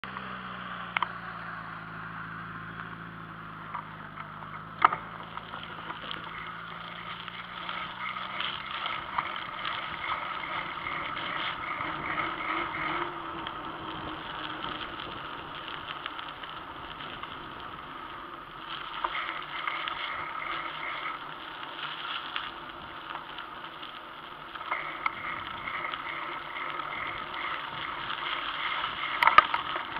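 Steady rush of wind and tyre noise from a bicycle ridden along a paved path, picked up by a camera mounted on the bike. A few sharp knocks are heard, the loudest about five seconds in and just before the end.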